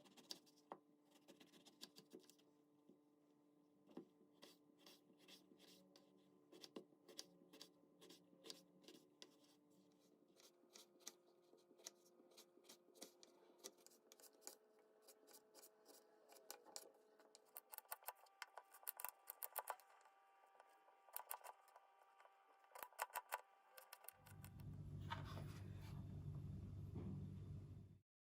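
Faint, quick, irregular clicks and crisp cuts, like a knife working through eggplant on a cutting board, over faint steady tones. About 24 seconds in, a louder low hum takes over for about four seconds, then stops abruptly.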